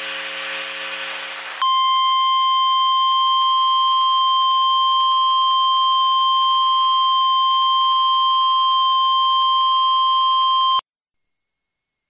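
A harsh electronic buzz for about the first second and a half. Then a single steady Emergency Alert System attention tone, the 1050 Hz weather-radio alert tone, holds for about nine seconds and cuts off suddenly. It signals that an emergency voice message follows.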